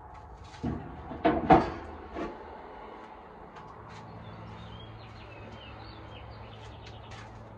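Steel drum smoker lids and parts clanking as they are handled: a few knocks, the loudest about a second and a half in. Then a steady low hum sets in, with birds chirping.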